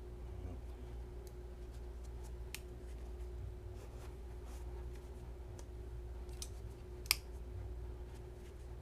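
Folding-knife blades being flicked open and snapped shut: scattered small clicks, with a sharper click about seven seconds in, over a steady low hum.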